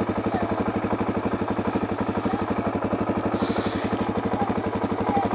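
Suzuki DR-Z400's single-cylinder four-stroke engine idling with an even, rapid thumping beat.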